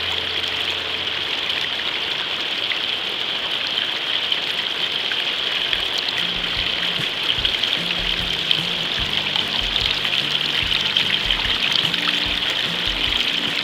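Water running steadily over a Gold Cube concentrator tray, washing a pile of beach black sand down the matting: a constant rushing trickle.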